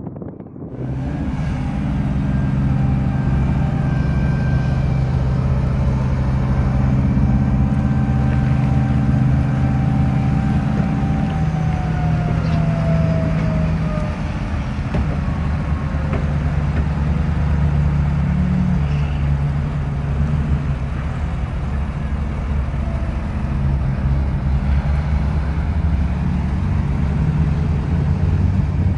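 Large mining haul truck's diesel engine running hard as the dump body tips out its load of rock, with the engine note shifting about halfway through and a thin falling whine at the same point.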